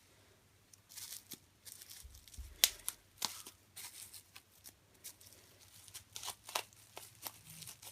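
Bubble wrap and plastic packaging being unwrapped and pulled apart by hand: irregular crackles and clicks, the sharpest about two and a half seconds in.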